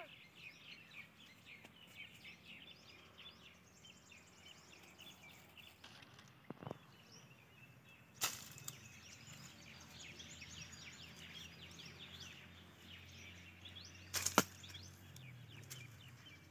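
Faint chirping of birds, many short calls repeating through the stretch, with a few sharp knocks, one about midway and one near the end, and a faint low hum in the latter half.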